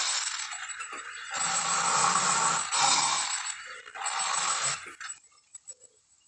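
Lion sound effect: three harsh, raspy growls of about a second each, the last ending about five seconds in.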